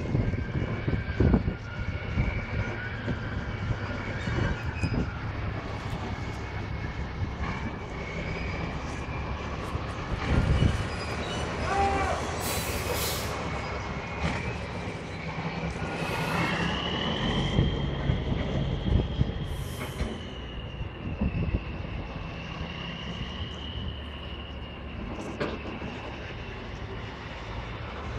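Heavy tractor truck running slowly as it hauls a loaded multi-axle lowboy trailer, a low steady rumble. A thin, high squeal runs over it and climbs in pitch a little past halfway, then wavers.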